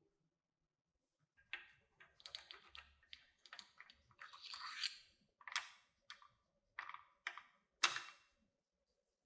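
Small parts being handled: a run of light clicks and taps, a short scraping rustle about halfway through, and one sharp click near the end that is the loudest sound.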